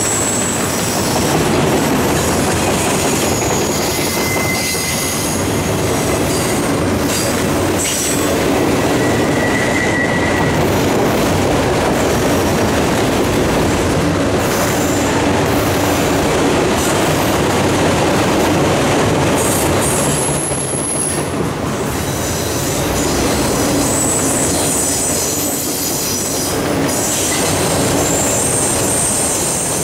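Freight train of autorack cars rolling past, a steady loud noise of steel wheels on rail, with brief high wheel squeals a few times.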